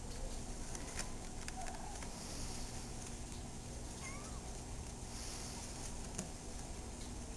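A few faint, short mews from young kittens at play, over a steady low hum and hiss.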